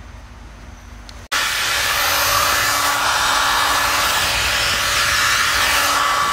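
A hot-air blower starts abruptly about a second in and runs steadily with a loud hiss, easing off near the end. It is being used to thaw a frozen Master Lock combination padlock.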